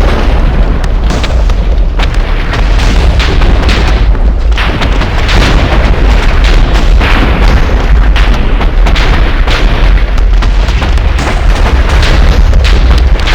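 Loud storm noise overloading the microphone: a continuous deep rumble with many sharp crackles throughout, and no single distinct thunderclap.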